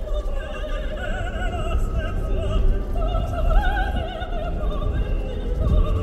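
Opera music: a voice singing held notes with wide vibrato, over a steady low rumble of the vehicle driving.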